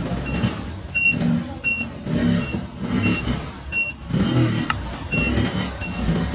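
Machine running with a low, uneven rumble and a short high squeak repeating about twice a second.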